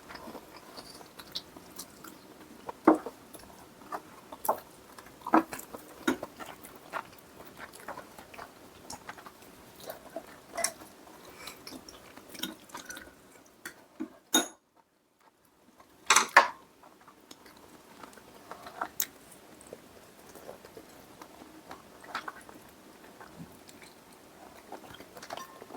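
Close-up eating sounds: chewing, with scattered clicks and clinks of spoons and chopsticks against bowls. The sounds break off for about a second and a half just past the middle.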